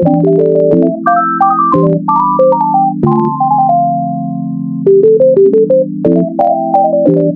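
Background music: an electronic keyboard melody of short stepping notes over a steady held low chord, with a light ticking beat.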